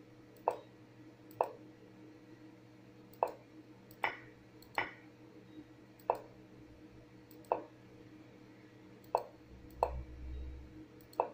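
About ten short, sharp clicks at irregular intervals, as moves are stepped through one by one on a computer chess analysis board, over a faint steady electrical hum.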